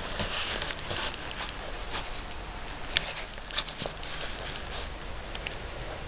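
Irregular light clicks and taps over a steady hiss, the sharpest one about halfway through: footsteps and handling noise from someone walking through an RV's interior.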